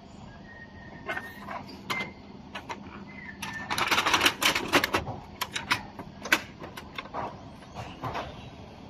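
Plastic clicks and clatter of a Brother HL-L2320D laser printer's drum unit and toner cartridge being slid into the printer, densest and loudest about four seconds in, then scattered single clicks and knocks as it seats and the front cover is closed.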